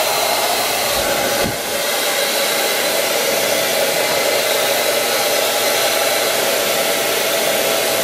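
Kingstar 1875W ionic salon hair dryer running steadily: a loud rush of air with a whining tone in it. It dips briefly about a second and a half in.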